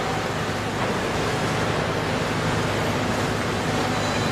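Concrete mixer truck's diesel engine running steadily: a low, even rumble under a broad wash of noise.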